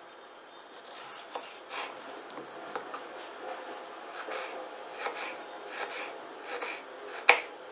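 Kitchen knife cutting through a cucumber on a wooden cutting board: a series of short rasping strokes, under a second apart, and a sharp knock of the blade on the board near the end.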